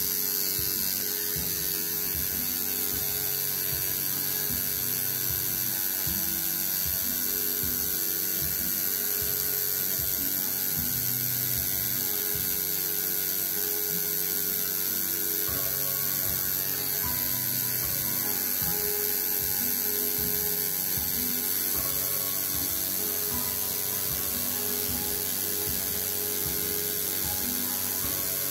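Home-rebuilt coil tattoo machine with a single needle, buzzing steadily.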